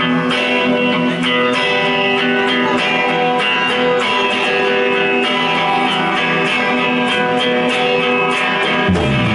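Electric guitar playing a song's intro alone, with repeated strummed chords. Low bass notes come in just before the end.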